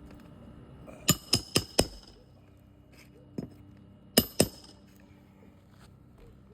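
Hammer driving roofing nails into a shingle: four quick strikes, a lighter tap, then two more strikes, each with a short metallic ring.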